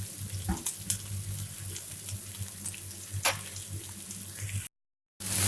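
Onions, green chillies and curry leaves sizzling steadily in hot oil in a kadai, with a few light clicks of the stirring spoon. The sound drops out for half a second near the end, then comes back as a louder surge of sizzling.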